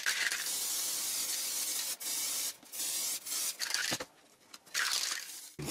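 Aerosol spray paint can spraying: one hiss of about two seconds, then a few short bursts, and a last hiss of about a second near the end.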